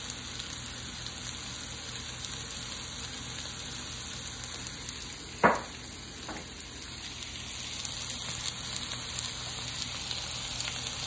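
Diced zucchini, red onion and garlic frying in oil in a frying pan, a steady sizzle, with a short knock about five and a half seconds in.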